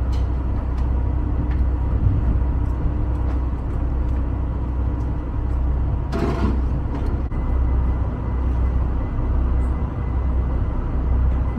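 Steady low rumble of the ferry Mermaid II's engine heard on board, with faint steady whine tones above it. A short burst of noise comes about six seconds in.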